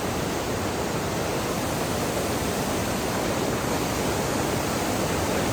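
Steady rushing water of a waterfall, an even unbroken hiss.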